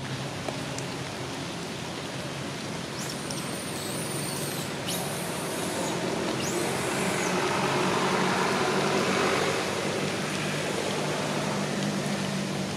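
Steady hiss of rain with a low motor-vehicle engine hum. The engine swells louder a little past the middle and then eases off. A few brief high-pitched calls sound about a third of the way in.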